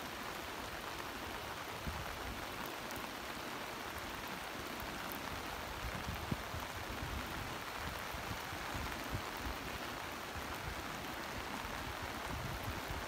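Steady hiss of heavy monsoon rain falling on a wet seafront, with irregular low rumbles of wind buffeting the microphone.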